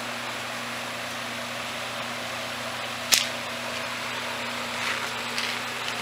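Steady background hiss with one sharp knock about three seconds in, followed by two softer brief scuffs near the end.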